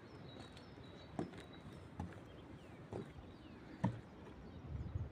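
Outdoor ambience: a steady rushing noise with small birds chirping, broken by four dull thuds about a second apart, the last one the loudest.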